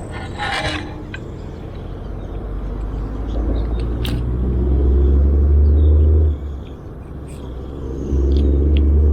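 Wind gusting across the microphone: a deep rumble that builds over a few seconds, cuts off sharply, then swells again near the end.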